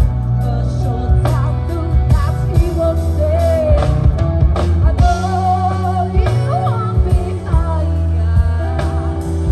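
Music: a song with a singing voice over held bass notes and a steady beat.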